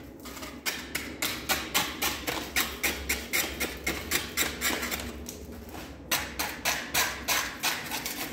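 Repeated sharp knocks of a hand tool chipping old tile adhesive off a wall, about three strikes a second, with a pause of about a second and a half past the middle before the strikes resume.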